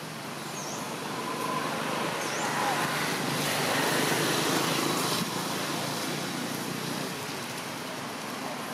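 Steady outdoor rushing noise that swells to a peak around four seconds in and eases a little just after five seconds, with two faint short chirps in the first half.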